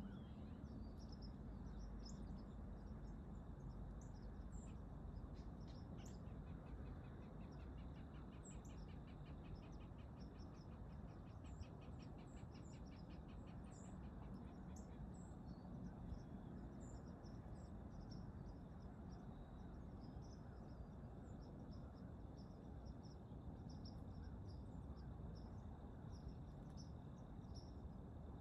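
Quiet field ambience at dawn: scattered high bird chirps over a steady low background hum, with a thin steady insect tone. From about six seconds in to about fifteen, a fast, evenly pulsed trill runs alongside.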